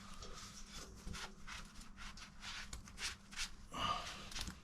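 A cloth wiping a dusty motorcycle part: a run of quick, faint rubbing strokes, a few a second.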